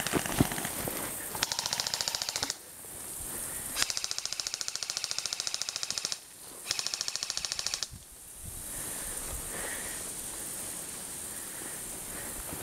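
Airsoft rifle firing three bursts of rapid full-auto fire, each a fast, even string of clicks lasting one to two seconds. Two sharp knocks come just before the first burst.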